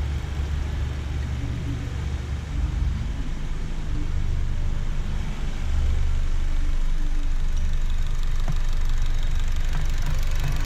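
Car engine idling steadily on CNG through a Zavoli dual-flow reducer, running very quiet with no reducer resonance. The level steps up slightly about six seconds in.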